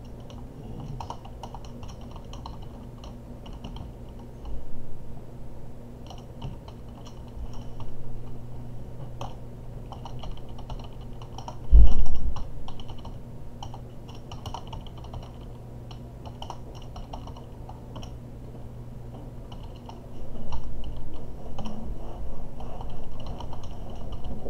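Typing on a computer keyboard, in bursts of rapid keystrokes separated by pauses, over a steady low hum. A single loud low thump comes about halfway through.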